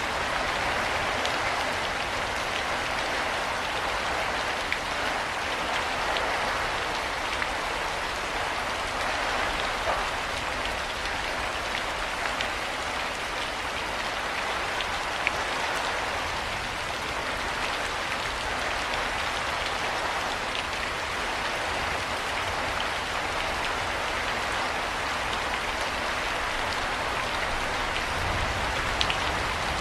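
Steady heavy rain falling, with single drops ticking out now and then. A brief low rumble comes in near the end.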